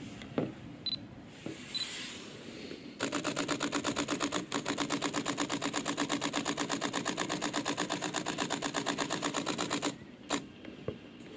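Olympus OM-D E-M1 Mark III shutter firing a continuous burst, a rapid even run of clicks at about ten frames a second that breaks briefly once and stops abruptly. Two short high beeps come before the burst.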